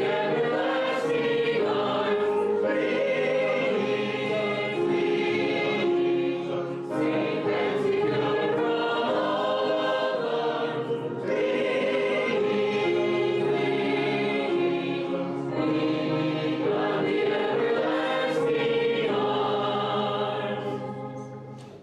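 A congregation singing a hymn together in held, steady notes, the last note fading out near the end.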